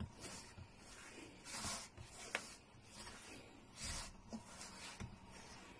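Hands kneading flour and cooked dal into stiff dough in a steel bowl: faint rubbing and squishing that swells twice, with a couple of light clicks.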